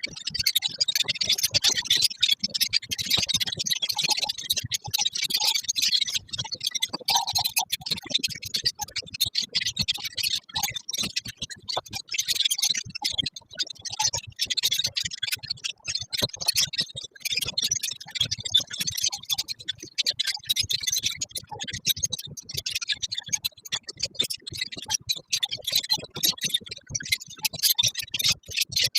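A colony of lovebirds chattering together: a dense, steady stream of shrill chirps and clicks.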